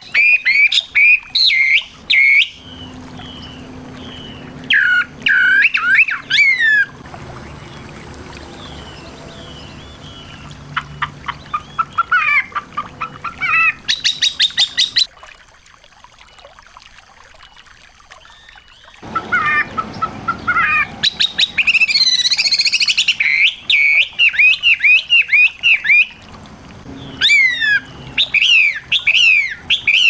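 Small songbirds singing in repeated bursts of fast, high chirps, sweeping whistles and rapid trills, with a long unbroken run of song in the second half.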